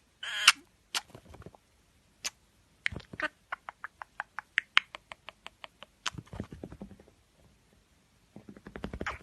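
Pet budgie making a series of sharp beak clicks and taps, including a quick run of about four or five ticks a second, then a short rattly buzz.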